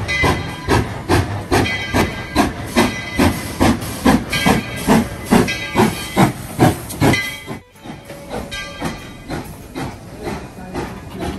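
Narrow-gauge 4-6-0 steam locomotive No. 12 working, its exhaust chuffing in an even rhythm of about two to three beats a second over hissing steam. The beats turn fainter after about seven seconds.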